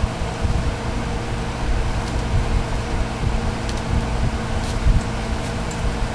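Steady low hum of room or equipment noise, with a few faint small clicks as the wire and fuse holder are handled and tightened.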